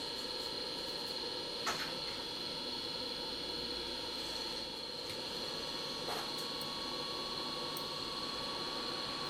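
Steady electrical hum and hiss, with a couple of faint clicks about two and six seconds in.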